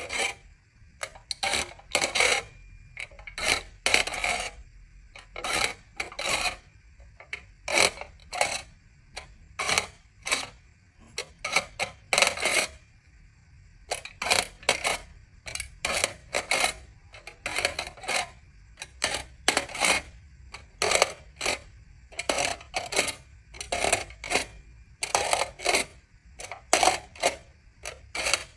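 Aluminium foil being crinkled and handled in short, sharp bursts, one or two a second at an uneven pace, with a bright metallic rattle.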